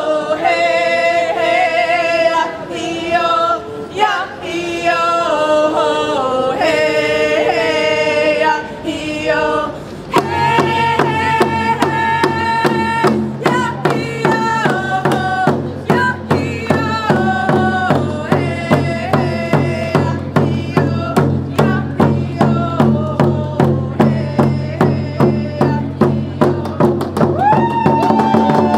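Several voices singing a chant-like song together, unaccompanied at first. About ten seconds in, rawhide hand drums struck with beaters join in with a steady, even beat under the singing.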